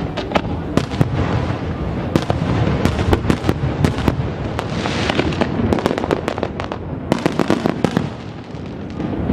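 Aerial fireworks going off: many sharp cracks and bangs, coming in quick runs, over a continuous rumble, with a brief hiss about five seconds in.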